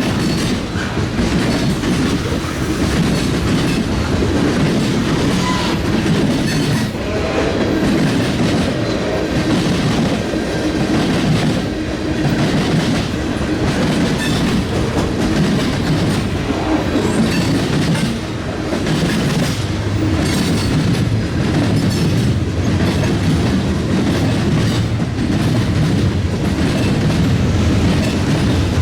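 Railroad cars rolling steadily past, their wheels clacking repeatedly over the rails with a continuous rumble.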